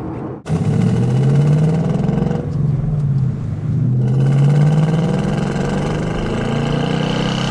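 Ford Mustang GT's Coyote V8 accelerating under load, its exhaust note climbing in pitch. It eases off for about a second and a half partway through, then pulls and climbs again.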